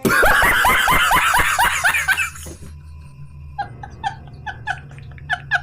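Meme laugh sound effect: a loud, rapid cackling laugh for about two and a half seconds, then, after a short gap, a quieter laugh in short even bursts, about four a second.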